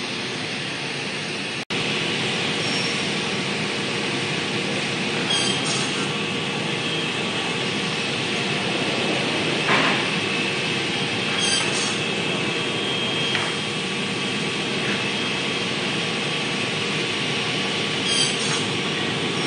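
Woodworking machinery running steadily: a CNC panel saw cutting a stack of wooden boards, with its dust extractor, a few short clacks and a swell about ten seconds in.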